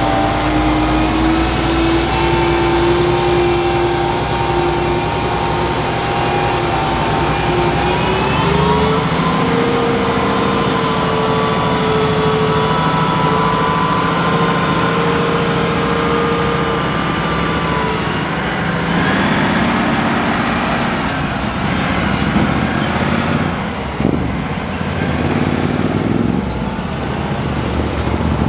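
Heavy truck's diesel engine pulling a house on a trailer past, its steady pitch stepping up about eight seconds in and holding. After about eighteen seconds the engine tone gives way to rougher passing-vehicle and tyre noise.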